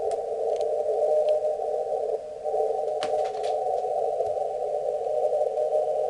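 Elecraft K3 transceiver's CW receiver audio: a steady band of narrow-filtered hiss with a very weak Morse code tone faintly keying on and off through it, barely readable on this receiver. A brief click about halfway through.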